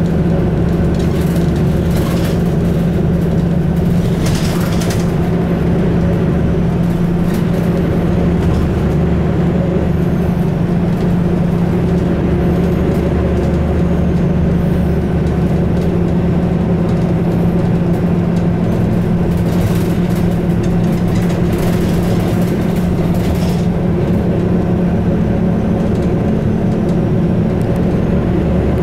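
Steady engine and road drone heard inside a moving road vehicle at cruising speed, a low hum with a few brief rushes of noise about four seconds in and again around twenty seconds in.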